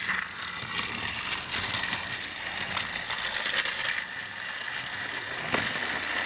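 Battery-powered TrackMaster toy engine and the plastic gearing of the walking bridge set running: a steady motor whine over rapid ratcheting clicks as the bridge walks the engine along. One sharper click about five and a half seconds in.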